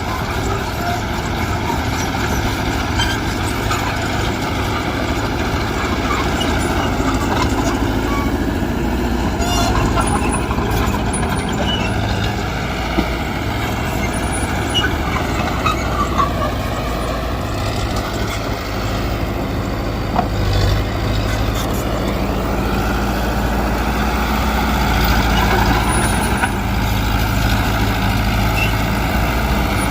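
Diesel engine of heavy earthmoving machinery running steadily under load; its pitch dips and climbs back about halfway through.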